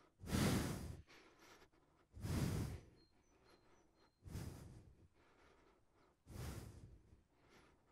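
A man exhaling hard four times, about every two seconds, as he works through side-plank hip dips: lowering the hip and pushing it back up.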